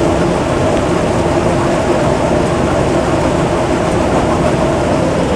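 GAM mini combine harvester running with its thresher engaged: the engine and spinning threshing drum make a loud, steady mechanical running noise with a constant hum in it.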